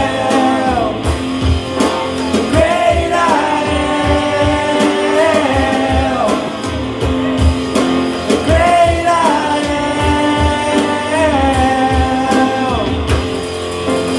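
Worship band music: singing voices over instruments with a steady drum beat.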